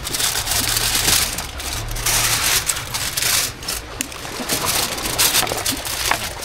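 Aluminium foil crinkling and rustling as it is wrapped tightly around a whole fish for grilling, with a steady low rumble beneath.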